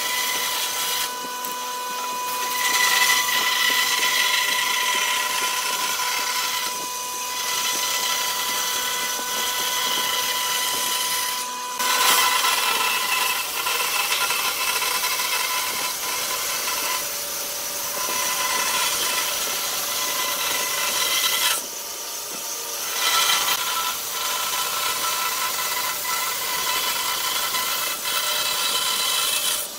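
Band saw running and cutting a curve through a thick wooden board: a steady whine over the rasp of the blade in the wood, easing off briefly a few times as the feed pauses.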